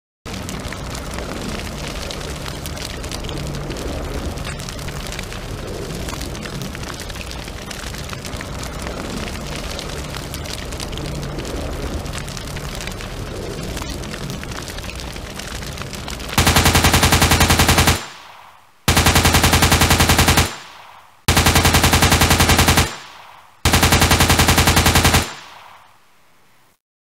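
Gunfire sound effect for a toy-soldier battle: a steady din of crackling gunfire for about sixteen seconds, then four loud bursts of rapid machine-gun fire, each about a second and a half long with a short echo trailing off.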